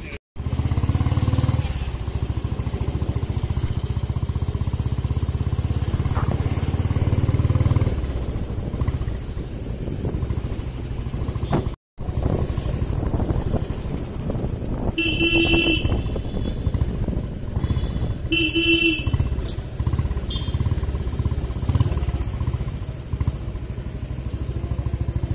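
Motorcycle engine running under way with a strong low pulsing rumble, loudest in the first third. A vehicle horn honks twice past the middle, each honk about a second long. The sound drops out briefly twice at edit cuts.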